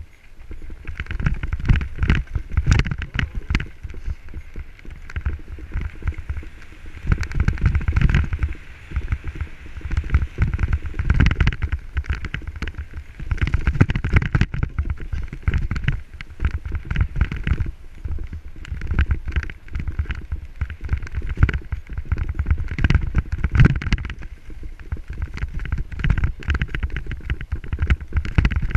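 Mountain bike rattling and clattering as it runs down a rough gravel and dirt singletrack, with a heavy rumble from the tyres over stones and roots. The clatter swells and eases every few seconds as the trail gets rougher and smoother.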